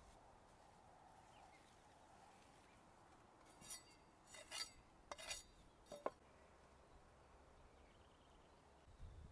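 Faint clinking and scraping of cooking utensils and containers: a handful of short light rattles about four to six seconds in, the last a single sharp clink.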